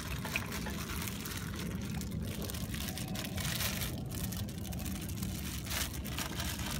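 Steady low background rumble, with a few soft crinkles of a thin plastic bag and glove as sticky rice is packed by hand.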